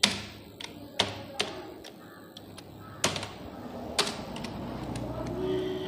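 Computer keyboard being typed on: single key presses as sharp, irregularly spaced clicks, the loudest roughly a second apart.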